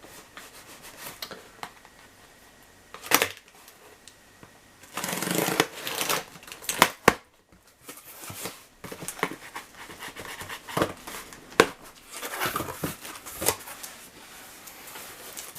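Cardboard box being opened and unpacked by hand: irregular rustling and scraping of cardboard and packing, broken by several sharp knocks and clicks.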